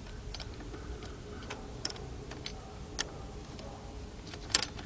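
Sparse, irregular light metallic clicks and taps as a socket on a swivel extension is fitted onto a driveshaft flange bolt, a pair of sharper clicks near the end.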